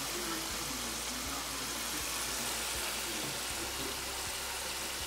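Potato wedges frying in hot oil in a deep fryer: a steady sizzle.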